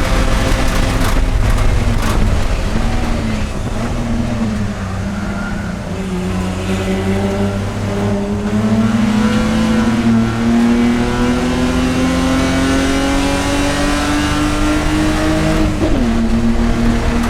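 Race car engine under load on track: the note dips and wavers in the first few seconds as the car slows, then climbs steadily through a long pull before dropping sharply at an upshift about sixteen seconds in.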